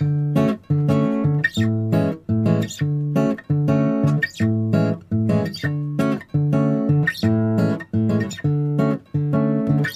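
Background music: a plucked guitar pattern repeating about twice a second at a steady beat.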